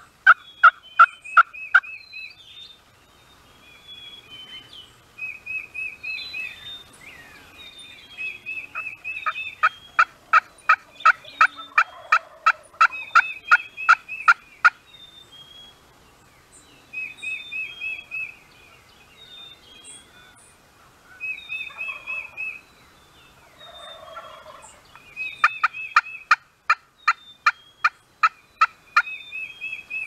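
Turkey yelps: three runs of rapid, evenly spaced notes, the longest lasting about five seconds midway and another near the end. Between the runs, songbirds give short trills and high chirps.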